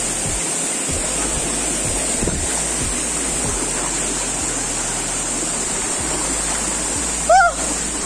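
Steady rushing of a waterfall's falling water, with a brief voice call near the end.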